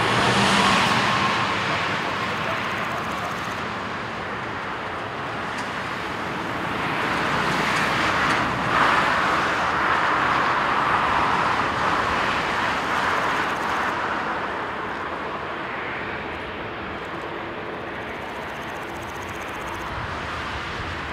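Airbus A350-900's Rolls-Royce Trent XWB turbofans at low taxi thrust as the jet rolls and turns onto the runway: a steady jet-engine rush that swells for several seconds in the middle, then eases.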